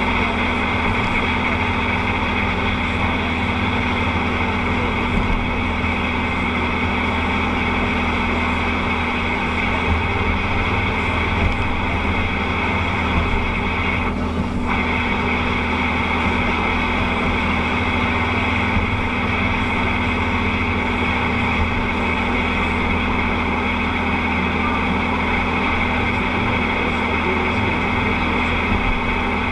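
Steady in-cab drone of a vehicle driving at motorway speed: engine hum together with tyre and road noise on a wet, slushy surface, with a brief dip in the hiss about halfway through.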